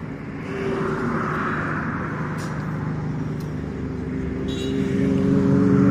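A motor vehicle's engine running close by, a steady hum that grows louder over the last two seconds or so as it draws nearer.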